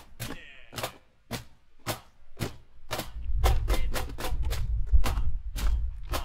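Wooden box cajón (a Leiva 'easy' cajón) played with bare hands: a steady groove of sharp slaps on its front plate, the rhythm pattern just taught with the syllables 'ma-ke-no-ko'. A low rumble runs under the strikes from about three seconds in.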